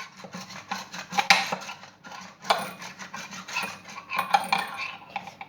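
Metal spoon and dishes clinking and scraping in a run of irregular knocks, with a few louder clinks, as kitchen utensils are handled.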